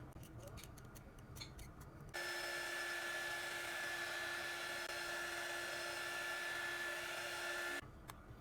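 A small electric tool motor switches on about two seconds in and runs with a steady whine and hiss for about six seconds, then cuts off abruptly.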